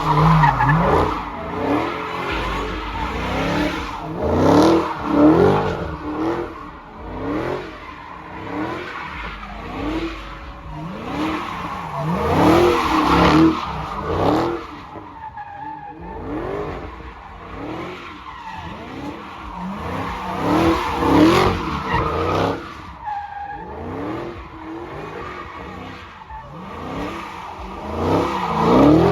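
Dodge Hellcat V8 engine revving over and over, its pitch climbing again and again, with tyres squealing and skidding as in burnouts or donuts.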